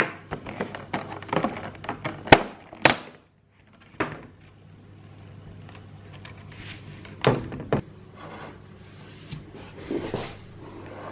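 Handling noise: rustling and a few sharp knocks as household things such as pillows and decorations are moved and set down, over a steady low hum.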